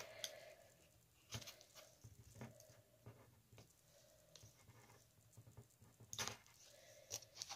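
Faint, scattered clicks and scratches of fingers picking at the cap and seal of a small plastic bottle that will not open, with a few sharper clicks near the end.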